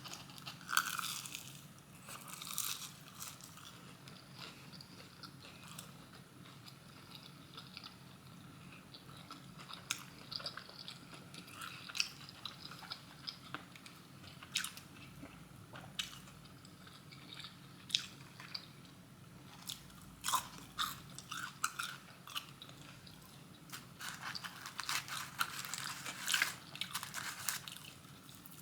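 Close-miked eating of crispy fried chicken tenders and fries: scattered crisp bites and crunches with chewing between them, and a denser run of crunching near the end.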